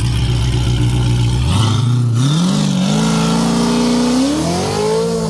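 Cammed, supercharged V8 of a C7 Corvette Z06 revving up for a burnout. A steady low rumble gives way, about a second and a half in, to a climbing engine pitch that levels off and then climbs again near the end.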